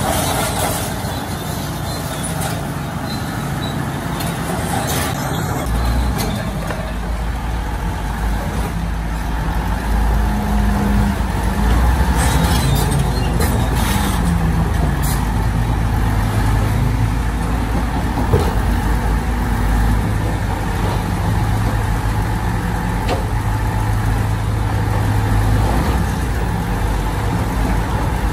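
Heavy construction machine's diesel engine running under varying load, its pitch rising and falling, the low rumble growing louder about five seconds in.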